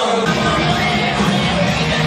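Rock music with guitar and a steady bass line, played over a ballpark's loudspeakers, starting about a quarter second in.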